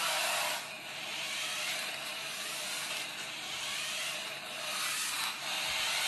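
Small electric motors and gearboxes of a toy remote-control vehicle whirring as it is driven: a steady high, hissing whir that dips briefly several times.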